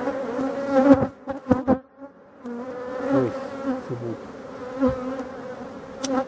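Honeybees of a large colony buzzing steadily over an open hive, with a few sharp knocks about a second in.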